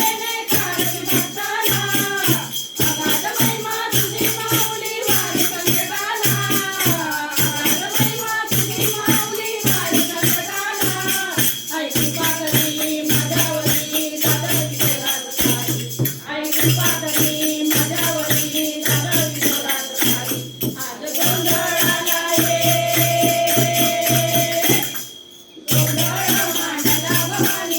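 Marathi gondhal devotional song to the goddess Bhavani: a singer's voice bends through the melody over fast, steady percussion. About 25 s in, everything briefly drops out before the song resumes.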